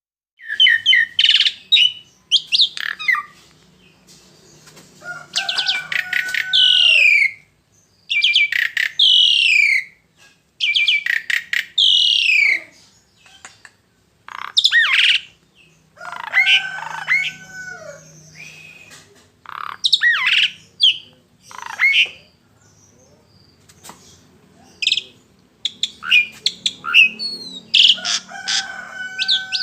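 Songbird singing loud, rapid phrases of quick sweeping and falling notes, each phrase a second or two long with short pauses between.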